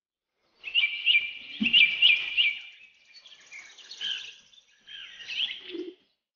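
Small birds chirping: a quick run of short, high, rising chirps, then scattered calls that stop about a second before the end.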